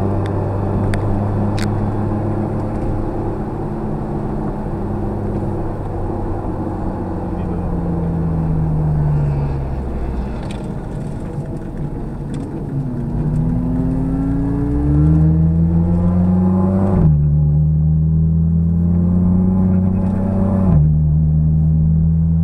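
Car engine heard from inside the cabin, holding a steady pitch and then falling as the car slows into a corner. It then rises again as it accelerates out, with two sudden gear changes in the last third where the pitch steps down.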